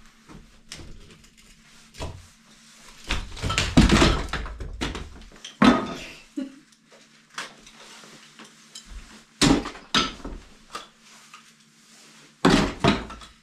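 Lath and plaster being torn off a wall by hand: irregular cracking and crunching of breaking plaster and wooden lath strips, loudest in a longer stretch about three seconds in. Pieces clatter as they are dropped into plastic buckets.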